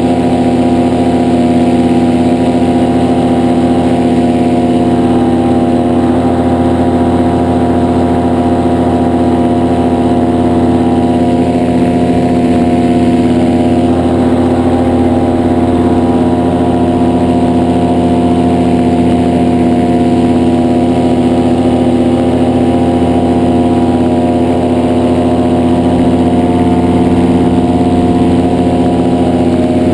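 The engine and propeller of a two-seat paramotor trike running steadily at constant power in flight, loud and close. The pitch holds even throughout.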